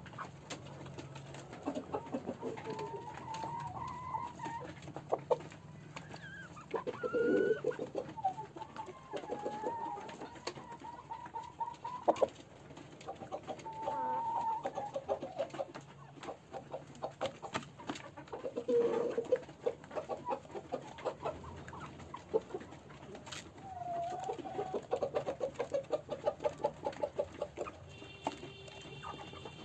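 Desi chickens clucking and calling again and again, with several drawn-out calls and a fast pulsed run near the end, over many short, sharp clicks.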